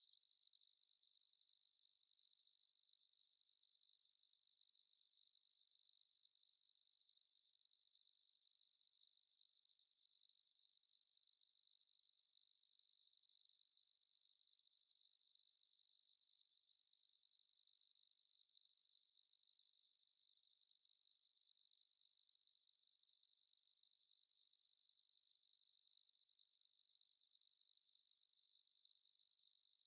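Insects, crickets by their sound, trilling in one steady, unbroken high-pitched drone with no change in level or pitch.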